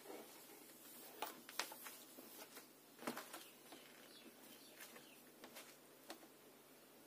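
Faint handling sounds of a fleece blanket being shaken out and spread over a bed: soft rustles with a few light, sharp knocks, the clearest about a second and a half in and again about three seconds in.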